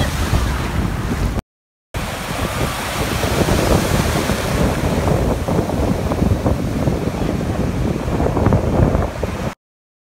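Breaking surf and churning water, with heavy wind buffeting the phone's microphone. The sound cuts out completely twice for a split second, once about a second and a half in and again near the end.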